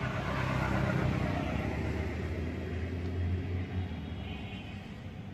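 An engine running with a steady low hum, louder in the first few seconds and easing off toward the end.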